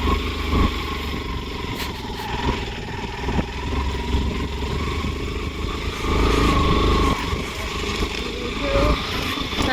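Motorcycle engine running as it rides slowly along a rough dirt track, with a steady low rumble that grows a little louder about six seconds in.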